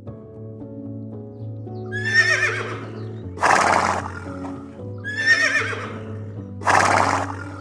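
Horse whinnying twice, each wavering neigh followed by a short breathy burst. Background music with held, steady tones plays underneath.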